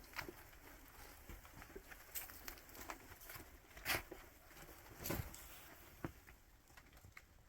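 Faint, irregular taps and patter, with louder knocks about four and five seconds in.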